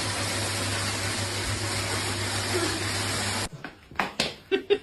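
A steady rushing noise with a low hum, which cuts off suddenly about three and a half seconds in; a few sharp clicks or knocks follow near the end.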